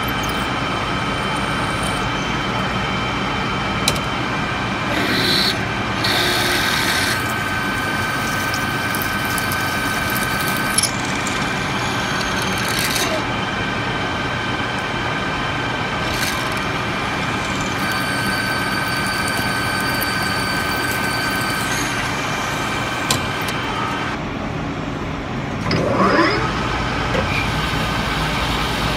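Metal lathe running, its motor and drive giving a steady whine, while a drill and then a boring bar cut into a spinning steel part. The whine shifts in pitch several times, and there is a brief louder scraping cut near the end.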